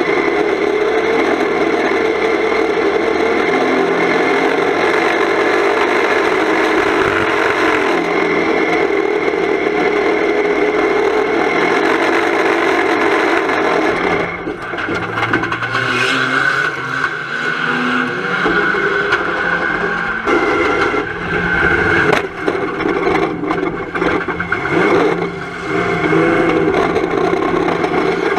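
Volvo 240 estate banger-racing car's engine running hard, heard from inside the stripped cabin with loose panels rattling. About halfway through, the engine note drops and turns uneven, with a few sharp knocks, as the car runs onto the grass.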